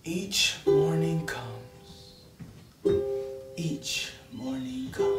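A plucked string instrument sounding three times, about two seconds apart, each note ringing on after the pluck, with short vocal sounds between the notes.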